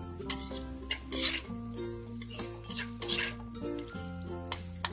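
Metal spatula stir-frying chicken skin and vegetables in a wok: irregular scrapes and tosses against the pan over a frying sizzle, with background music underneath.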